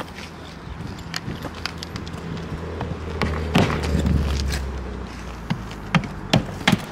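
Scattered sharp knocks and taps from roofing work on an asphalt-shingle roof, a few seconds apart and irregular, over a steady low rumble.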